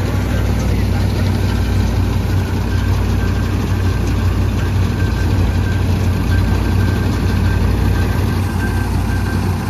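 Swaraj 963 FE tractor's three-cylinder diesel engine running steadily under load, driving a Jagatjit straw reaper through the stubble. Engine and reaper together make a constant low drone with a faint steady whine from the machine.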